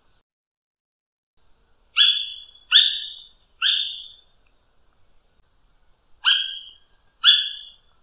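Guianan red cotinga calling: five short calls, each starting abruptly and tailing off, three in quick succession about two seconds in, then two more after a pause of about two seconds.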